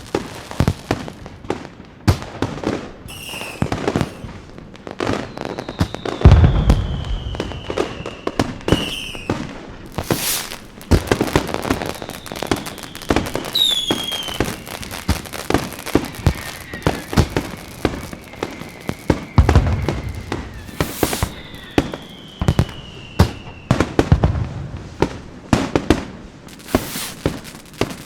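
Fireworks going off: dense crackling and many sharp pops, with a few falling whistles and several deep booms, the loudest about six seconds in.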